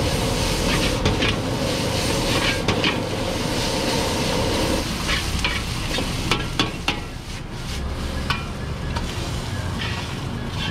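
Fried rice sizzling in a wok as a metal ladle scrapes and clanks against the pan. About halfway through the steady rush drops away, and a few sharp clanks follow.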